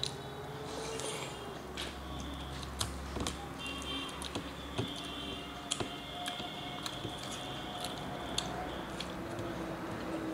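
Fingers mixing and squishing rice with curry on a plate while eating by hand, giving soft squishes and scattered small clicks.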